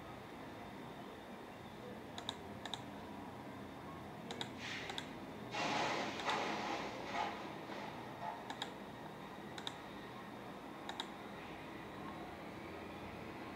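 Computer mouse clicking, sharp single clicks and quick pairs scattered through, as pages are selected and submitted. About halfway there is a louder stretch of clatter and rustling lasting about two seconds.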